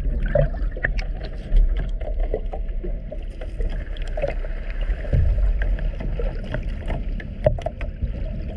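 Water heard through a camera held underwater beside a boat hull: a steady low rumble with many small clicks and knocks.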